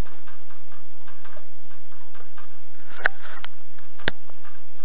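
Pet rabbit drinking: a run of faint small ticks and clicks, with a few sharper clicks near the end.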